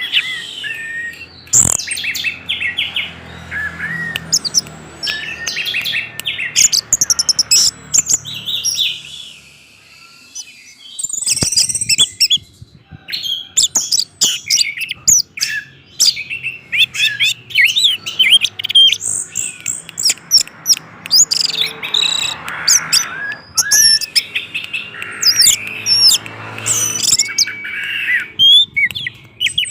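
Orange-headed thrush singing a fast, varied stream of chirps, whistles and trills in full song, with a short pause about ten seconds in.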